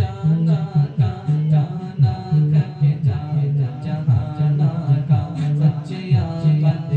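A naat being sung, a solo voice carrying a bending melody over a repeating low beat about twice a second.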